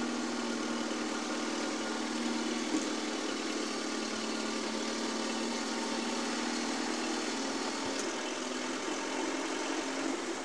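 Forklift engine running steadily while its hydraulics raise the forks with the small jeep on them, a steady drone. The drone eases off near the end as the lift stops.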